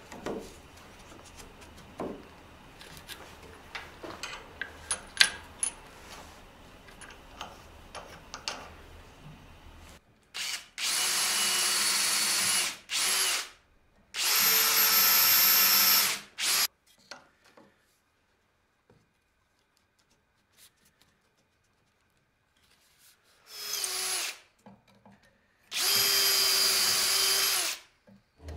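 An electric drill bores hinge-pin holes through the wooden knuckles of a box-joint hinge, guided by a drilling jig. It runs at a steady pitch in four bursts, three of about two to three seconds and one short one. Before the drilling there are about ten seconds of light clicks and knocks.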